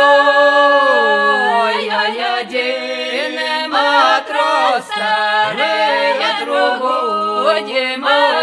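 A trio of two women and a man singing a Ukrainian folk song a cappella in close harmony. It opens on a long held chord, then moves on through shorter phrases with sliding vowels.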